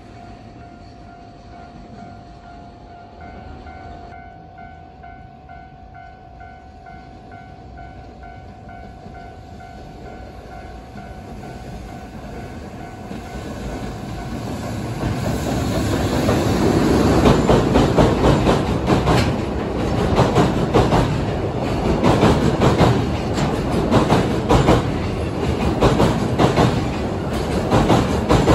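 A level-crossing warning bell rings in steady, even pulses while an electric train approaches. The train grows louder and passes close by about halfway through, its wheels clattering over the rail joints.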